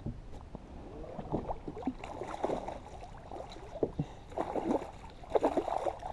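Water splashing and sloshing against a kayak, in irregular bursts with small knocks, the strongest about two seconds in, around four and a half seconds and near the end.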